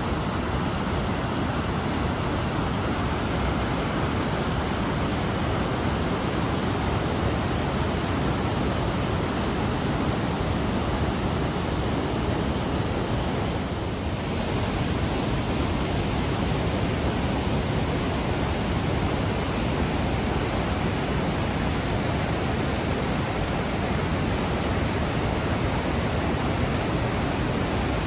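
Large waterfall: a steady, loud rushing of falling water.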